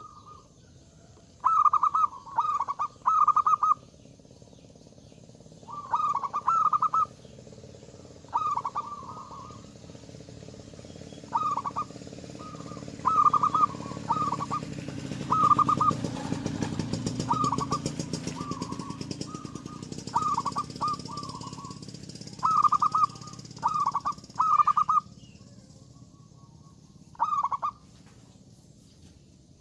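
Zebra dove (perkutut) cooing, its short rolling coo phrases repeated in clusters of one to three every second or two. A low rumble swells and fades in the middle.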